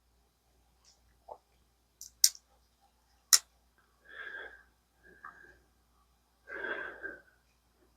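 Two sharp clicks from a folding knife with a crossbar lock being worked in the hand, with a fainter tick before them and soft rustling handling sounds afterwards.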